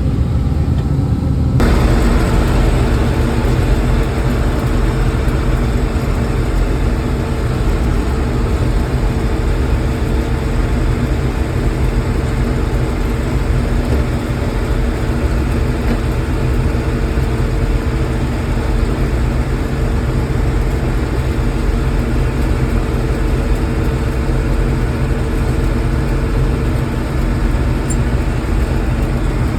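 John Deere 6600 combine running steadily, a continuous engine drone with a machinery hum. Less than two seconds in, the sound abruptly becomes fuller and hissier.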